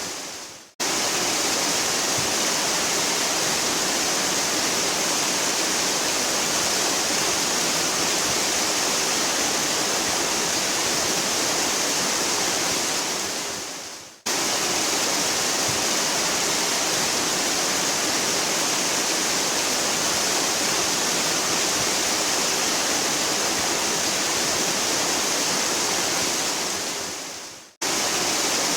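A waterfall's steady, hissing rush of falling water. Three times, just after the start, about halfway and near the end, it fades away to near silence and then cuts straight back in, as at the joins of a looped recording.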